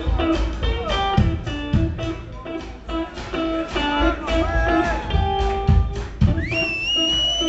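Blues music led by guitar, with bent notes and a high note held near the end.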